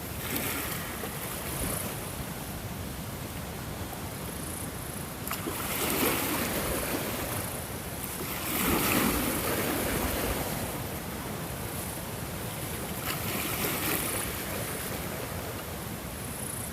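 Ocean waves washing onto a shore, a steady rush of surf that swells three times, the biggest surge about nine seconds in.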